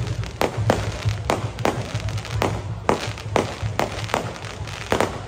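Fireworks going off in a rapid, irregular string of sharp bangs, about two to three a second.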